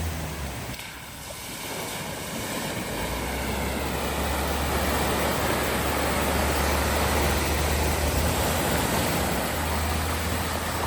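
A vehicle driving through a flooded ford: a low, steady engine hum under a constant rush of water noise. The water noise builds over the first few seconds, then holds.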